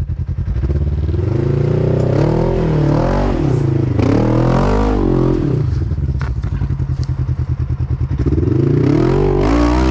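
Polaris RZR side-by-side engine revving in repeated surges as the machine claws up a steep, rooted dirt climb. It drops to a lower, evenly pulsing idle a little past halfway, then revs up again near the end.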